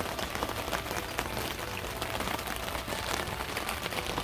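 Steady rain falling, a dense run of small drop ticks over an even hiss.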